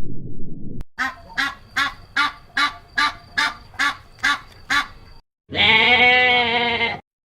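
A low rumble cuts off just under a second in, then a duck quacks about eleven times in a steady run, followed by one long, wavering animal call near the end.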